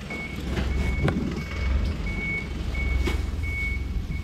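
A vehicle's reversing alarm beeping steadily, about three high beeps every two seconds, over the low rumble of an idling engine, with a few short knocks.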